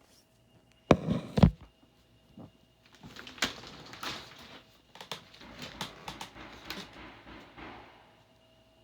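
Two loud thumps about a second in, then several seconds of clattering and knocking, like someone banging about and moving things in a room.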